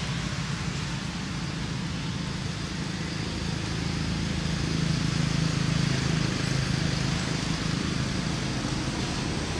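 Steady low background rumble with a hiss above it, swelling slightly about halfway through.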